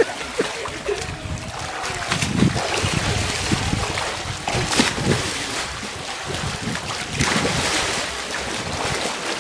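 Swimming-pool water splashing and sloshing as people wrestle in it, with a few heavier splashes spread through.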